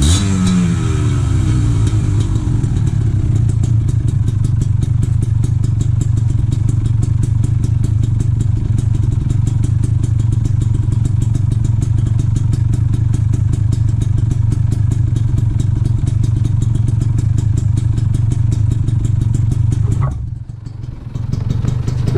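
Kawasaki Ninja 150 two-stroke single-cylinder engine running through a stock muffler that has been hollowed out. The revs fall right at the start, then it runs steadily with a rapid crackling exhaust beat. Near the end the sound drops suddenly for about a second and then picks up again.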